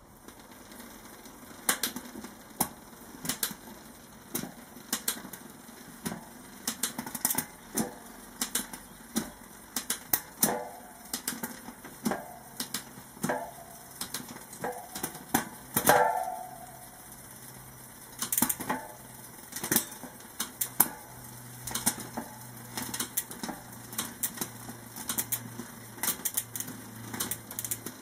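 Bicycle drivetrain, apparently SRAM XX1, turning in a repair stand: the chain runs over the rear cassette with many sharp, irregular clicks and a brief clatter as it shifts across the cogs, loudest about two-thirds of the way in.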